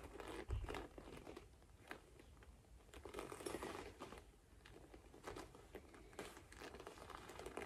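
Faint rustling and small soft knocks of handling as a suede sneaker is turned over in the hands.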